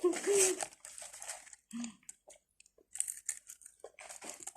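A laugh trails off, then someone chews and bites crunchy food in sparse, short crunches, with a faint crinkle of wrapping.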